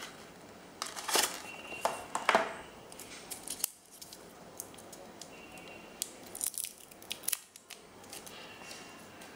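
Small plastic clicks, taps and scrapes from handling a smartwatch and a magnetic USB charging cable, in several short clusters.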